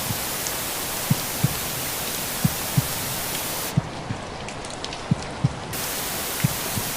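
Steady rain-like hiss under a slow heartbeat: five lub-dub pairs of low thumps, about one pair every 1.3 seconds. Near the middle the high hiss thins out for about two seconds, leaving scattered raindrop ticks, then comes back.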